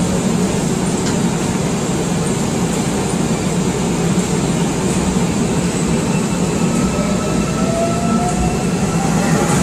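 Electric subway train running, a steady dense rail and running noise. About seven seconds in, a faint whine comes in and slowly rises in pitch.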